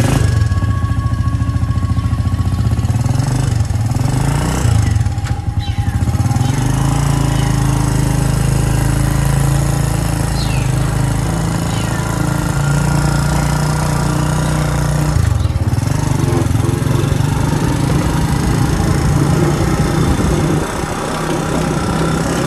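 Motorcycle engine of a tricycle (motorcycle with sidecar) running while under way, heard from the sidecar as a loud, steady, pulsing rumble that rises and falls a little with the throttle.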